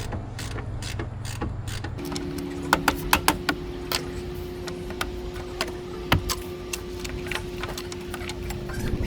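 Scattered sharp metallic clicks and knocks over a steady mechanical hum, whose pitch steps up about two seconds in.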